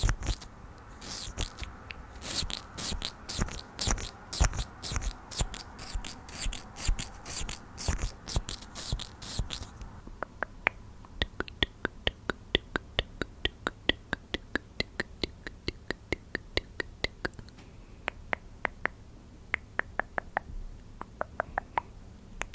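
A makeup brush sweeps in quick, irregular strokes for about ten seconds. A run of rapid light clicks follows, about four a second.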